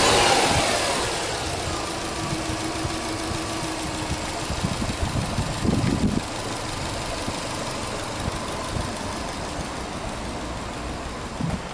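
Subaru Legacy 2.0GT's turbocharged EJ20 flat-four settling from a rev back down to a steady idle in the first second or so, then idling evenly. There is a brief low rumble about six seconds in.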